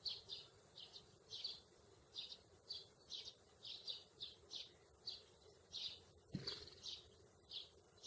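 House sparrow chirping: short single chirps repeated steadily about twice a second. A soft low thump comes a little past six seconds in.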